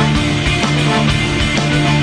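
Loud rock music: a band with drums keeping a steady beat under held bass notes and full guitar chords.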